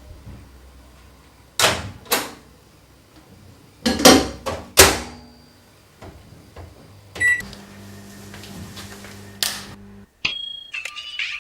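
Microwave oven in use: several sharp clicks and knocks as its door is opened and shut, a short beep from its keypad, then the oven running with a steady low hum for a few seconds until it stops. Music starts near the end.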